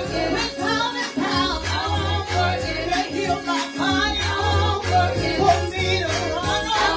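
A woman singing a gospel praise song into a handheld microphone, over instrumental backing with a low bass line and a steady beat.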